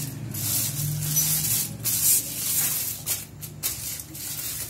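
Aluminium foil crinkling and rustling in uneven bursts as it is rolled and twisted tightly around a log of sweet.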